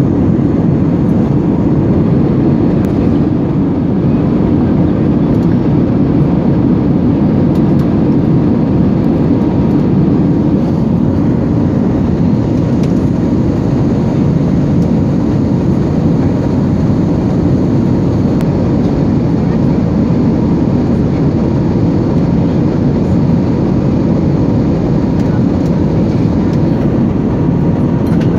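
Steady engine and air roar inside a passenger jet's cabin.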